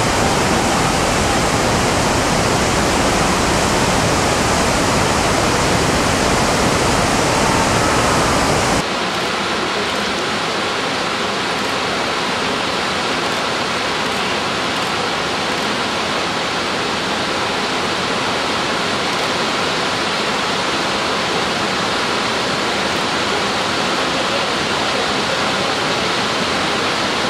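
Whitewater rapids of the Chenab River rushing and churning steadily. About nine seconds in the sound cuts to a slightly quieter, duller rush of the same kind.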